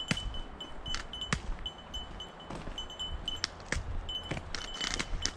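Small bell on a trotting guide dog's collar jingling in short, irregular dings, with scattered light taps and crunches on a gravel path.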